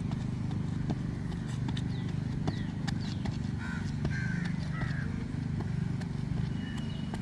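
Running shoes landing on a synthetic track during a C-skip drill, heard as light, irregular taps over a steady low background rumble. A bird chirps a few times in the middle.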